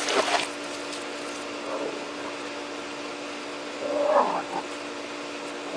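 Kitten mewing, a faint cry near two seconds in and a clearer one about four seconds in, over a steady low hum.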